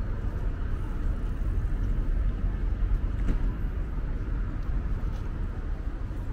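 Steady city street traffic rumble with a brief knock about three seconds in.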